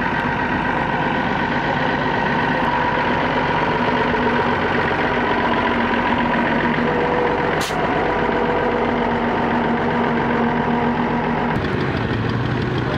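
Mercedes-Benz Unimog's diesel engine running steadily at low speed as it drives past, with one short click partway through. Near the end the engine note changes to that of a small red vintage tractor.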